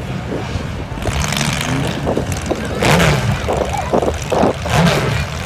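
Demolition derby compact cars' engines running, their pitch rising and falling with revs several times.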